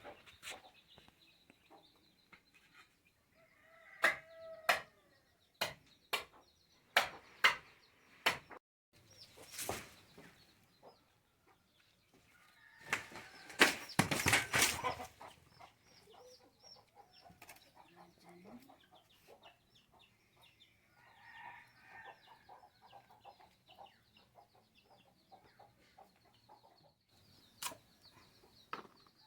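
Domestic fowl clucking, with a loud flurry of wing flapping about halfway through and a run of sharp knocks before it.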